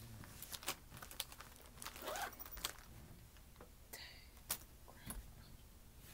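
Faint handling noise as school supplies and their plastic packaging are moved: scattered sharp clicks and taps, with a short crinkle of plastic about two seconds in.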